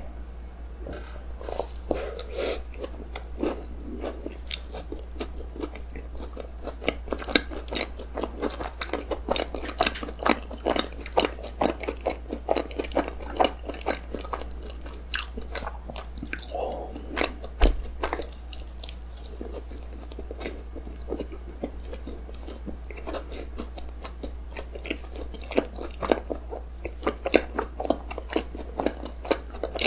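Close-miked biting and chewing of a cookies-and-cream roll cake, with many small crunches from the crisp Oreo cookie pieces in the cream.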